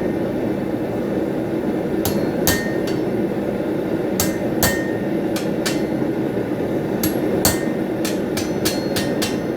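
Blacksmith's hammer striking steel on an anvil in irregular pairs and clusters, about fourteen blows, quickening near the end, some leaving a short high ring. A steady rushing noise runs underneath.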